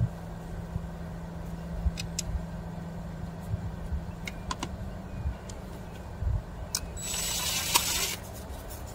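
Hands rummaging through a plastic parts box, small parts clicking and knocking, over a steady low hum. About seven seconds in comes a rustling hiss lasting about a second.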